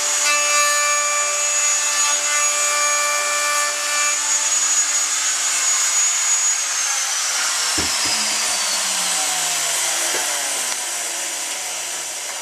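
Electric router cutting the shallow latch-plate mortise into the wood of a door edge. The motor whines steadily, then is switched off about six and a half seconds in and winds down with falling pitch, with a single knock near the eight-second mark.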